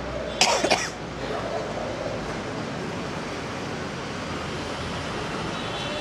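A short, loud burst about half a second in, lasting about half a second, over a steady background hiss.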